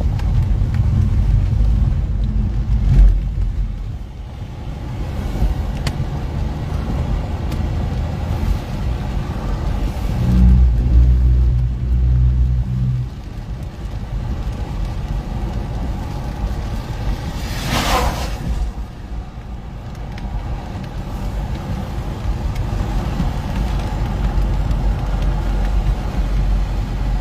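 Low, steady rumble of a car, with a thump about three seconds in, a louder stretch of low rumble from about ten to thirteen seconds in, and a short whoosh about eighteen seconds in.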